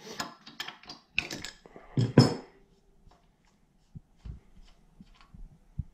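Steel adjustable wrench clicking and clanking on the spark plug and cylinder head of a Kohler K301 engine as the plug is broken loose. The loudest clank comes about two seconds in and rings briefly. After that there are only faint ticks while the plug is turned out by hand.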